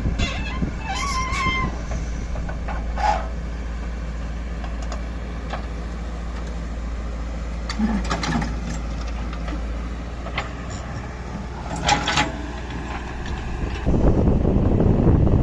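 Heavy diesel vehicle engine running with a steady low rumble, with occasional clanks and knocks. Near the end it suddenly gets louder and rougher, as under load or with more throttle.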